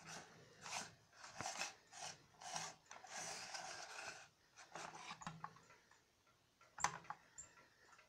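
Plastic Crocodile Dentist toy being handled and scraped across a wooden tabletop, a run of short rasping strokes, then a single sharp click about seven seconds in.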